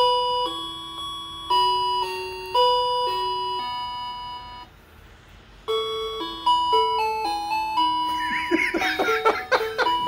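Electronic musical doorbell chime playing a simple tune in clear, steady single notes. It goes quiet for about a second halfway through, then a tune starts again. Near the end, voices sound over the melody.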